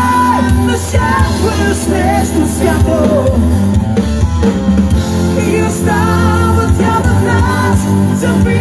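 Live rock band playing loudly: electric guitars, bass guitar and drum kit, with a voice singing over them.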